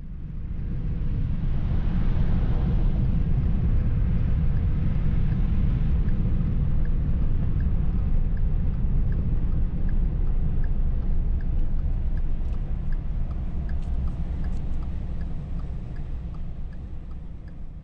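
Road noise inside a moving car: a steady low rumble of tyres and engine, fading in at the start and out near the end, with a faint regular ticking about one and a half times a second through the middle.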